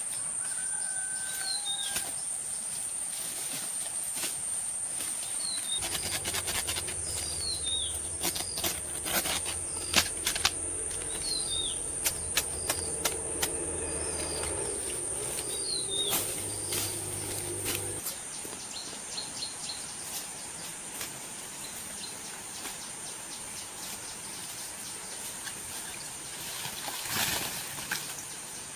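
Forest ambience: a steady high insect drone with repeated short falling bird chirps. From about six to eighteen seconds a low steady hum and scattered clicks join in, and a brief swell of noise passes near the end.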